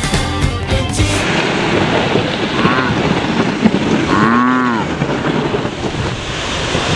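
A rock song cuts off about a second in, giving way to heavy wind noise buffeting the camera's microphone. Over the wind, a person's voice calls out twice, rising and falling in pitch.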